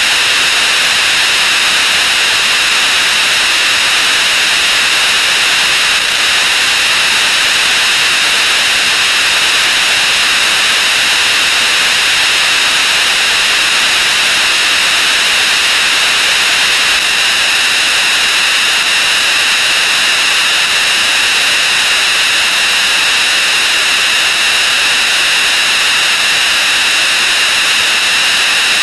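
Loud, steady, harsh hiss-like noise with a shrill high edge: many sound effects played at 64 times speed, run together into one continuous blur.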